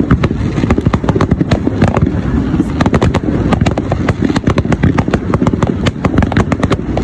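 Fireworks going off in a dense, unbroken barrage: many sharp bangs and crackles a second over a constant low rumble.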